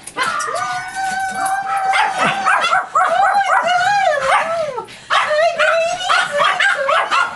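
Pet dogs whining and yipping in excitement at their owner's return, with high, wavering whines and yelps almost without a break, including one long held whine near the start.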